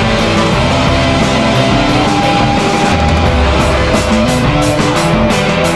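Loud rock music with guitar; a rapid, even beat of crisp percussive hits comes in about three and a half seconds in.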